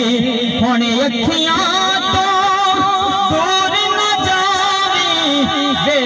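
A man singing a Punjabi naat through a microphone and PA loudspeaker, holding a long, wavering, ornamented note through the middle without words.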